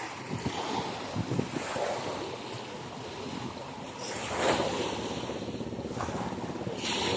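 Wind buffeting the microphone over the wash of waves on the shore, with a louder rush about four and a half seconds in.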